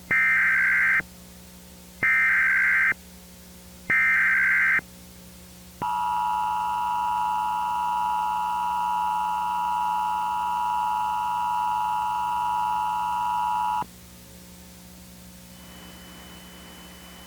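Emergency Alert System signal for an Amber Alert. First come three short bursts of the SAME digital header, each a warbling data screech about a second long and two seconds apart. Then the two-tone attention signal holds steady for about eight seconds and stops. A faint steady low hum runs underneath throughout.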